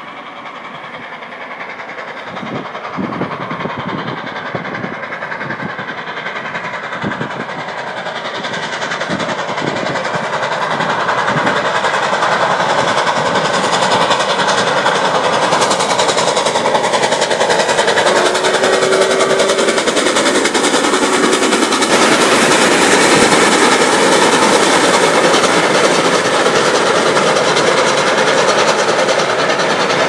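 A steam-hauled passenger train passes: the locomotive and the wheels of its coaches on the rails grow louder over the first dozen seconds, then hold at a steady, dense rumble.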